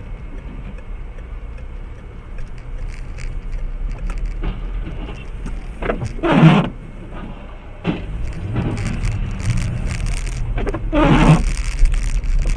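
Car cabin noise recorded by a dashcam: a steady low engine and road rumble with scattered light clicks, broken by two loud short bursts about six and a half and eleven seconds in.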